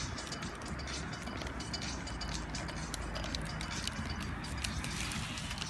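Bamboo burning in a bonfire, crackling with many small sharp pops and clicks over a low steady rumble.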